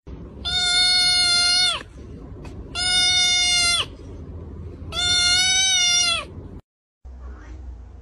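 Kitten meowing three times, each a long call of about a second held at one steady pitch.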